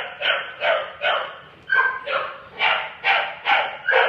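Dogs barking in play while they wrestle: a quick run of about ten short barks, two or three a second.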